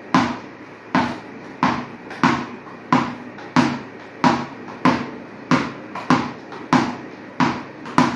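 A ball bounced again and again on a hard floor, in a steady rhythm of about three bounces every two seconds, each bounce ringing briefly.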